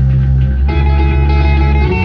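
Live rock band's electric guitars and bass playing held, ringing notes through the amplifiers. More guitar notes join higher up about two-thirds of a second in.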